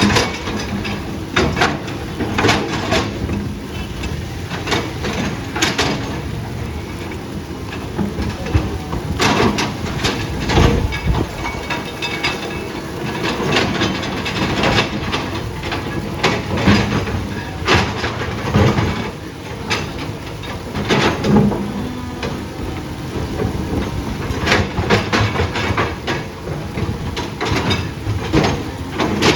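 Heavy tracked earthmoving machine running steadily, with repeated sharp metallic clanks and knocks over the engine rumble.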